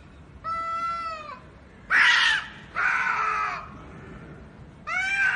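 Domestic cats yowling at each other in a fight: four long, wavering calls, the second a harsher screech.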